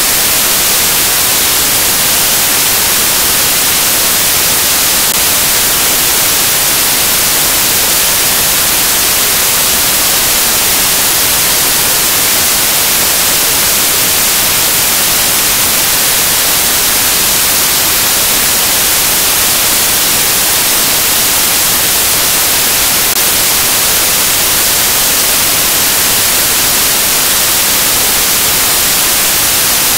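Loud, steady static hiss, strongest in the treble, unchanging and with nothing else in it: noise in place of the soundtrack where the recording has broken up into a grey, glitched picture.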